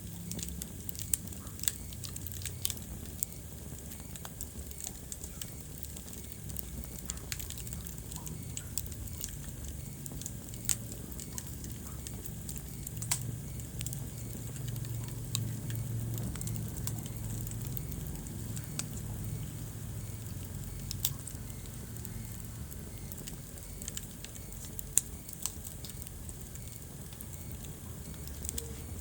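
Wood fire burning in a fireplace: sharp crackles and pops at irregular intervals over a low, steady rumble.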